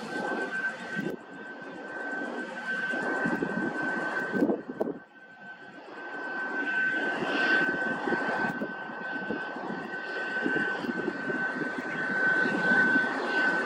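Airbus A321neo airliner's jet engines running as it rolls along the runway: a steady high whine over a rough engine rumble. The level drops briefly about five seconds in, then builds again.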